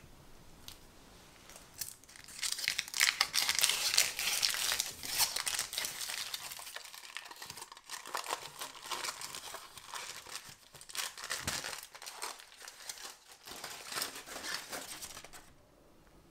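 Aluminium foil being peeled off and crumpled from around the base of a stainless steel cake ring. It is a dense crinkling that starts about two seconds in, is loudest soon after, then thins out and stops shortly before the end.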